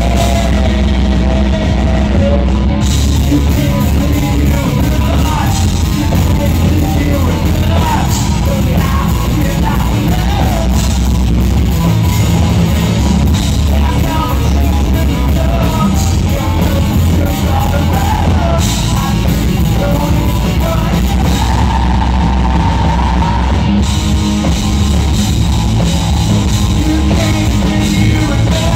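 Live rock band playing loud: electric guitars, electric bass and a drum kit.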